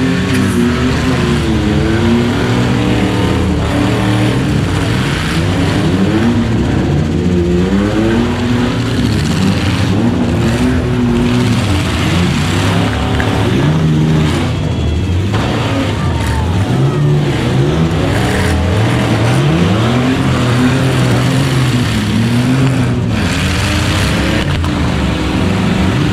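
Several demolition derby pickup and van engines running at once, their pitch rising and falling as they rev and accelerate through the mud.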